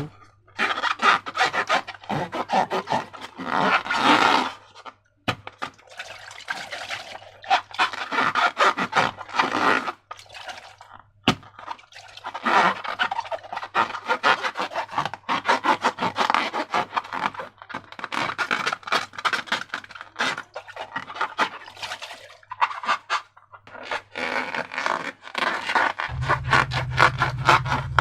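Close handling sounds of slime-making with balloons: irregular rubbing and scraping with short crackly, squishy bursts, coming in spells with brief pauses. A low hum joins near the end.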